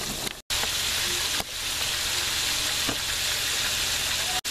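Breaded chicken drumsticks and thighs deep-frying in a pot of hot oil at medium-high heat: a steady bubbling sizzle. It cuts out briefly just under half a second in and again near the end.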